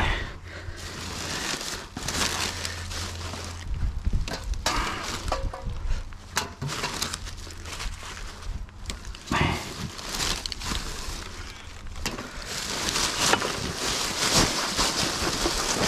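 Rubbish being sorted by hand: irregular rustling and crinkling of aluminium foil and other litter, with scattered knocks and clinks of cans and bottles, busier over the last few seconds.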